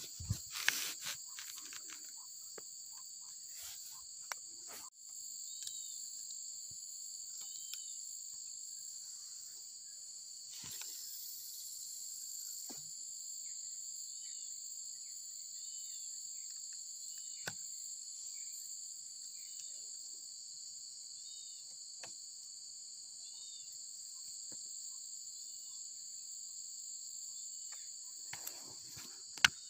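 Steady high shrilling of a chorus of insects from the riverside vegetation, with a short chirp repeating about every two seconds. A few sharp clicks and knocks come at the start and near the end.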